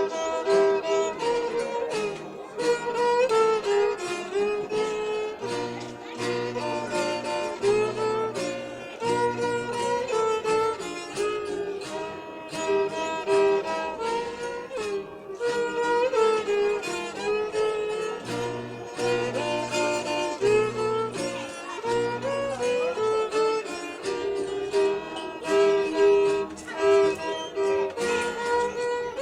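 Traditional Zinacantec string music: a violin playing a held, wavering melody over plucked-string accompaniment with repeating low bass notes.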